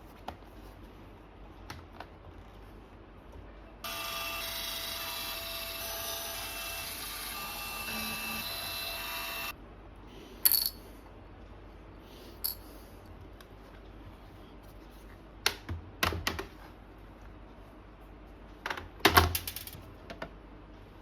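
A small electric motor whirs steadily for about six seconds. Then come a handful of sharp clicks and knocks as the laptop's screws and plastic bottom panel are worked loose.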